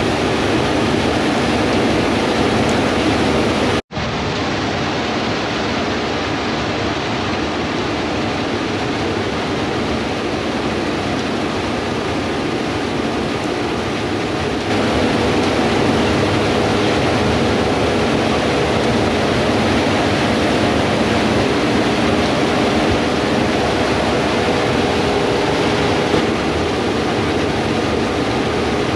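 Gleaner S98 combines harvesting wheat: a steady rushing machinery drone with a faint hum running through it. It breaks off for an instant about four seconds in and comes back slightly louder about fifteen seconds in, where the footage is cut.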